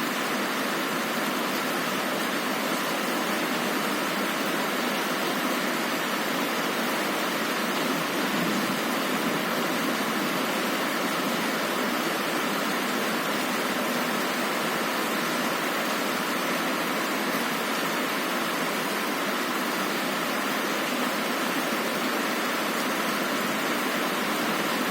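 Heavy rain falling on a window, a steady, even hiss without any thunder.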